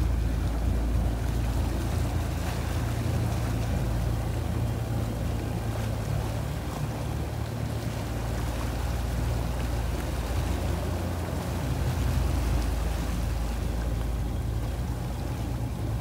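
Twin outboard motors of a Boston Whaler running at low speed during joystick maneuvering: a steady low hum, with propeller wash churning the water.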